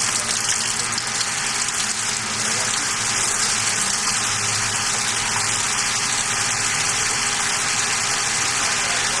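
Treated wastewater gushing from an opened sample tap into a plastic bucket, a steady splashing pour that starts as the tap opens and partly falls onto a hand held in the stream. A steady low machinery hum runs underneath.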